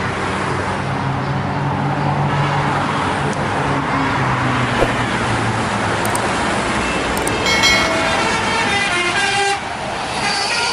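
Heavy traffic noise with a passing vehicle's low engine hum. About seven seconds in, a bus's telolet multi-tone musical horn plays a short stepping tune for two to three seconds and cuts off abruptly.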